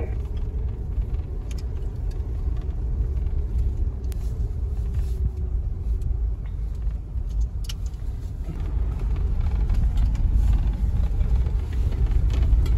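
4x4 vehicle driving on a dirt road: a steady low rumble of engine and tyres, with a few sharp clicks and rattles.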